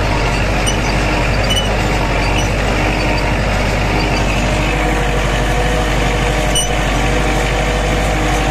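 Farm tractor engine running steadily at an even speed, heard close up from the machine itself.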